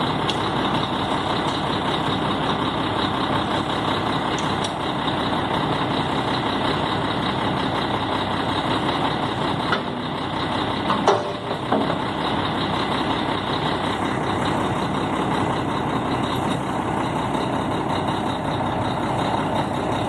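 A heavy engine running steadily, with one brief louder clatter about eleven seconds in.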